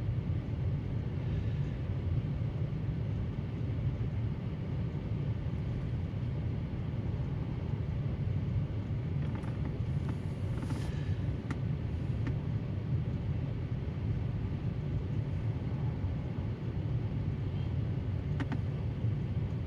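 The car's heater blower fan running, a steady low rush, with a few faint clicks around the middle and near the end.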